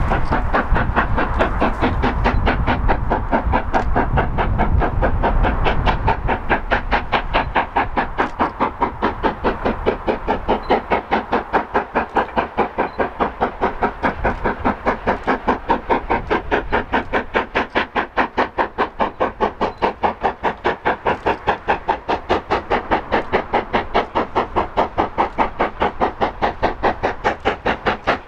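LMS Black 5 4-6-0 No. 45212's two-cylinder exhaust beating hard and evenly, about three beats a second, as the locomotive works its train up a steep 1 in 78 gradient.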